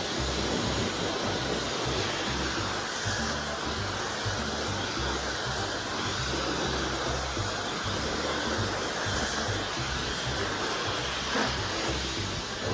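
Dyson Supersonic hair dryer blowing steadily, an even airy rush with a high hiss.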